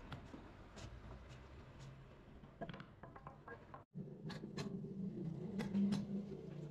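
Hammer striking the wooden handle of a chisel as it cuts a mortise into a timber beam: irregular sharp taps, a few each second. After a short break about four seconds in, a low steady hum runs under the strikes.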